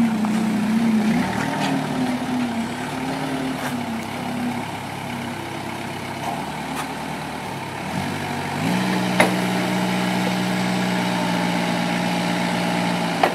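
Truck-mounted forklift's engine running, its note wavering at first, then rising about two-thirds in and holding steady while the mast lifts the load. There are two sharp clicks, one just after the rise and one near the end.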